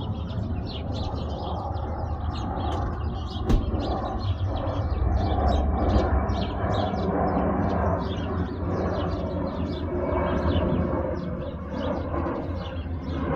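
Small birds chirping over the steady low rumble of an Airbus A320neo's jet engines as it flies in on approach to land. A single sharp click sounds about three and a half seconds in.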